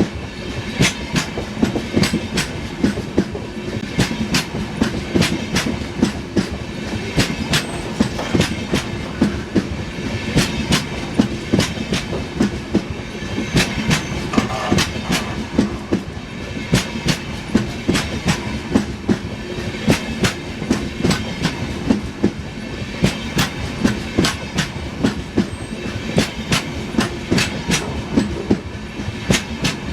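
LHB passenger coaches running along the track, their wheels clicking sharply and repeatedly over rail joints above a steady rumble and faint hum.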